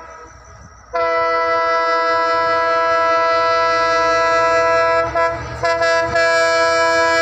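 Approaching train's horn sounding a long, steady multi-tone blast, cut off for about a second at the start and then held. A few brief knocks come near the middle.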